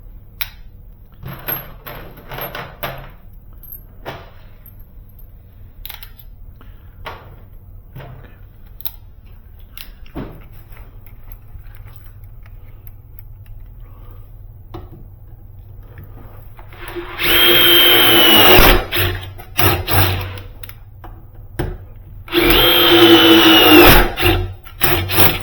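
Power drill run twice in bursts of about two seconds, working screws or holes into a hollow metal door, with a steady whine. Before that come scattered small clicks and knocks of tools and screws being handled.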